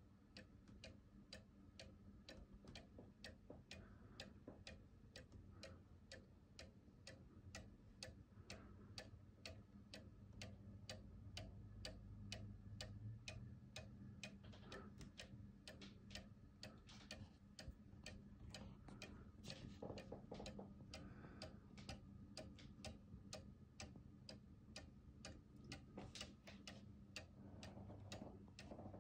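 Cuckoo clock with a 1-day Regula movement, ticking faintly with a steady, even beat.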